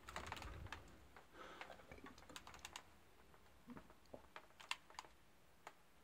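Faint, irregular plastic clicks and taps from a Dyson V6 cordless stick vacuum being handled in its wall-mounted dock.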